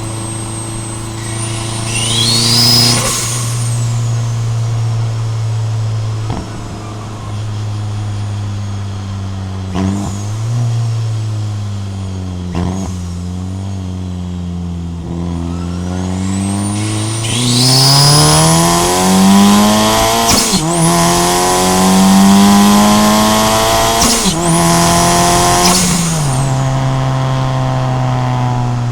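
Turbocharged Honda Fit's stock L15A7 1.5-litre four-cylinder, fed by a TD04-13T turbo at 7 psi, idling and being revved: a short blip about two seconds in, two small blips, then a longer rev from about sixteen seconds that is held high until about twenty-six seconds before dropping back to idle. A high turbo whistle rises with each rev and falls away as the throttle closes.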